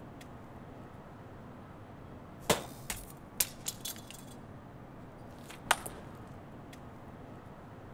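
Sharp clacks and knocks from a ping pong trick shot with knives, paddles and a pineapple. A loud hit comes about two and a half seconds in, followed by a quick run of lighter clicks. Another loud hit comes near six seconds.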